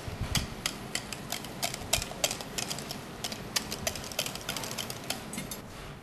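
Wire whisk clicking and scraping against a stainless steel pot while mashed potato is mixed with grated apple: quick, irregular metal taps, several a second, that stop just before the end.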